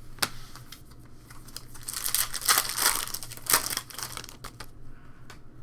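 A trading-card pack's foil wrapper being torn open and crinkled by hand, with a sharp click just after the start and the crinkling loudest in the middle.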